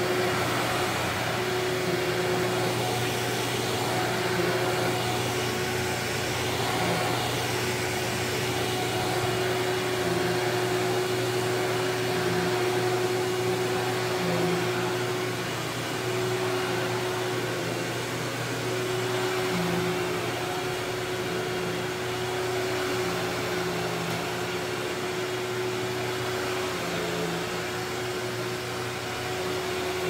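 Sanitaire SC5815A commercial upright vacuum cleaner running steadily with a constant motor hum and whine, pushed back and forth over carpet; the level swells and eases slightly with the strokes.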